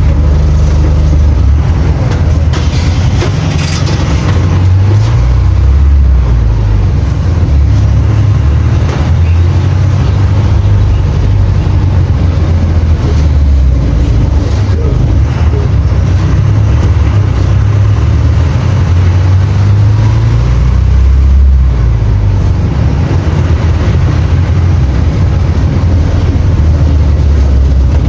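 Bus diesel engine, a Cummins Interact 4.0 four-cylinder inline, running loud and steady, its low note rising and falling repeatedly as the revs change.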